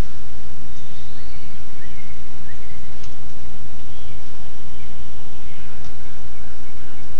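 Loud, steady outdoor background noise, with a few faint, short high chirps from birds now and then.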